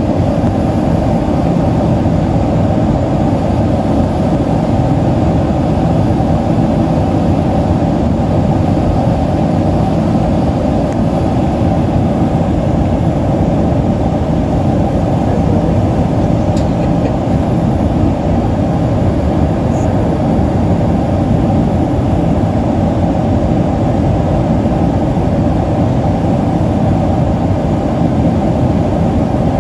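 Steady cabin noise inside a Boeing 767-300ER climbing after take-off: a loud, even rumble of its jet engines and the airflow, heard from a window seat over the wing.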